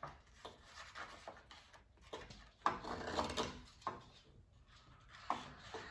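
Child's scissors cutting paper: a few irregular snips, with paper rustling as the sheet is handled.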